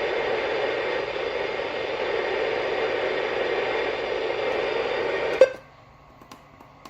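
Radio receiver giving steady static hiss while tuned to a weak, barely received NOAA Weather Radio channel. About five seconds in it cuts off with a click and goes quiet.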